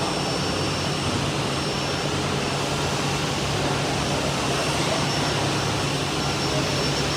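Steady roar of a woodworking-machinery trade-fair hall, with a low hum and a few faint steady high-pitched tones.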